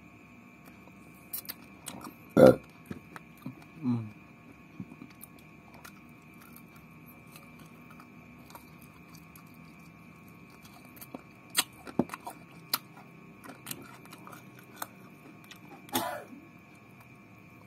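A person eating meat off the bone with the fingers: scattered small chewing clicks and crunches, with a short loud vocal sound from the throat about two and a half seconds in, a lower falling one near four seconds, and another near the end, over a faint steady high hum.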